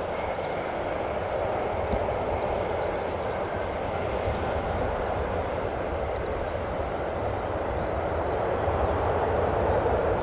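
Steady rushing jet noise from a Boeing 747-8F freighter's GEnx engines, growing a little louder near the end, with small birds chirping thinly above it.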